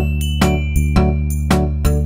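Background music with a steady beat: sharp, bright repeated notes, about three a second, over a held bass.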